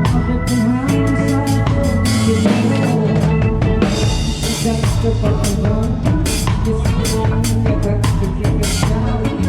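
Live band playing an instrumental passage in rehearsal, the drum kit to the fore over bass and sustained chords, with a steady beat.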